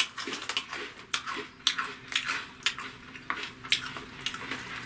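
Himemaru fried rice cracker crunching as it is chewed, an irregular run of sharp, crisp crackles.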